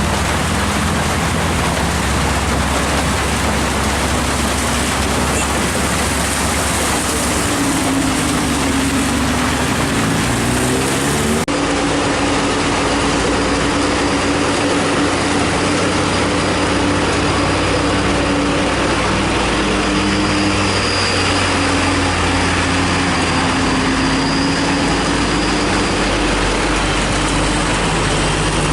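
Diesel engines of Hino trucks and buses running under the steady hiss of heavy rain, the engine note dipping and rising about a third of the way in.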